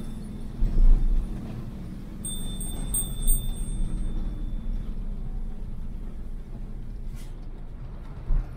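A vehicle on the move: the steady low rumble of engine and road, with occasional low thuds. From about two seconds in, a thin, high ringing tone like a chime sounds for a couple of seconds and fades.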